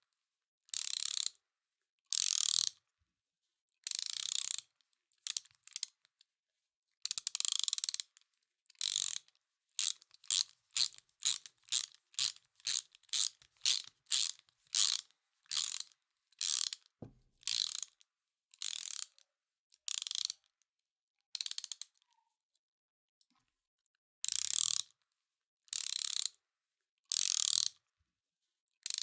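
Hand ratchet wrench being worked back and forth, each stroke giving a short burst of ratcheting clicks with a pause between strokes. The strokes come quicker in the middle, about two a second, and there is a pause of about two seconds near the end before a few more strokes.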